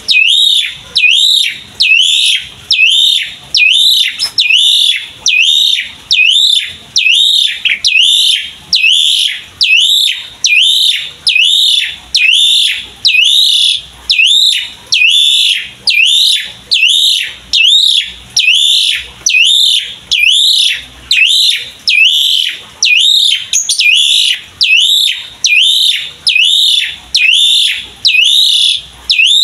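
Asian pied starling (jalak suren) calling continuously in its pumping 'gacor' song: a loud whistled phrase that rises and then drops, repeated evenly a little over once a second without a break.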